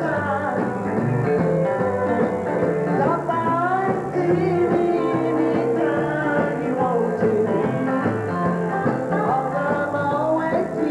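Live band playing a song, with acoustic guitar and keyboard under a bending melody line.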